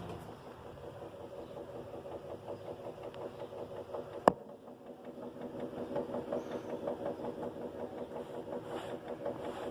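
GE Profile top-load washing machine running on a single-speed motor, with a rhythmic pulsing hum. A sharp click comes about four seconds in, after which the running grows louder.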